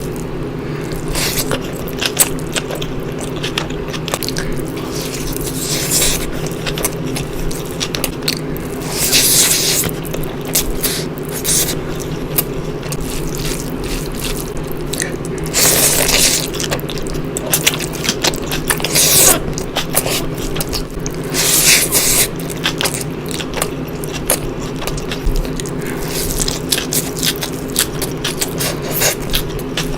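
Close-miked eating of mutton biryani: wet chewing and smacking clicks with short rustling bursts, over a steady low hum.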